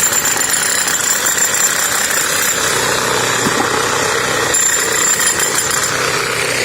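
Demolition hammer chipping concrete: a continuous loud rattling hammering of the chisel against the column's old concrete surface.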